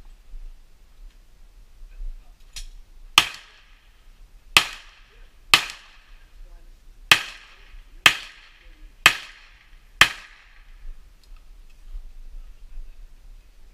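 Eight gunshots from a competitor's firearm, about one a second, the first one fainter, each with a short echo after it.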